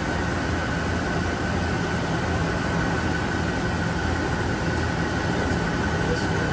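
Steady shop-floor machinery noise: a constant low hum with a thin steady whine above it, unchanging throughout.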